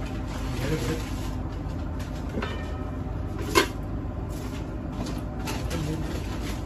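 Steady rumble of kitchen background noise, with one sharp metal clank a little past halfway as an aluminium lid is handled on a foil-sealed pot of biryani.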